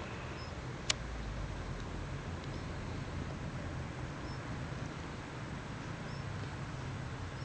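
Wood bonfire burning with a steady hiss, and one sharp pop about a second in.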